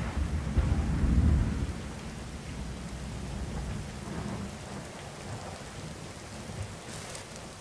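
Thunder rumbling over steady rain, the rumble dying away after about a second and a half and leaving the hiss of rain, which slowly grows fainter.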